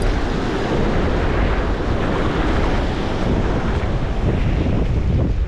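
Steady wind buffeting the microphone, over the wash of ocean surf against the rocks.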